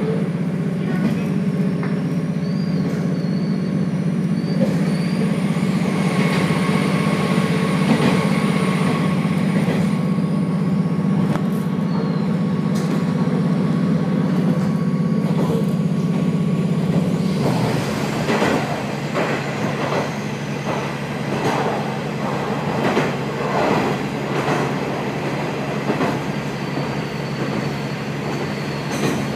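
Inside a KiHa 47 diesel railcar under way: the diesel engine drones steadily under power until a little past halfway, then drops back, leaving the wheels clattering rhythmically over rail joints amid the rolling track noise.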